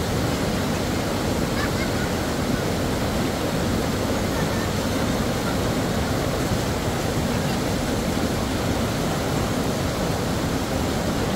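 Fast, shallow mountain stream rushing over rocks: a steady, even wash of water noise.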